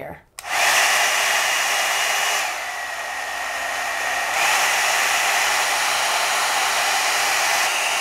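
Knock-off one-step hot-air dryer brush switched on about half a second in and stepped through its settings. Its fan runs loud, drops quieter and lower for about two seconds on the middle setting, then comes back up to full. The low setting runs as loud as high.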